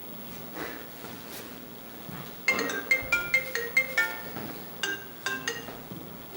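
A short melody of tinkling, marimba-like notes, starting about two and a half seconds in over faint room noise.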